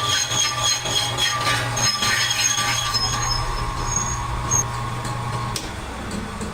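A metalworking machine running on a steel rim: a steady low hum with intermittent high-pitched squealing of metal on metal. The hum cuts off about five and a half seconds in.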